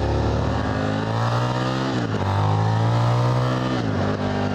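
The Ronin 47 motorcycle's Buell 1125 V-twin engine accelerating under load. Its pitch climbs, drops sharply at an upshift about two seconds in, climbs again, and drops at a second upshift near the end.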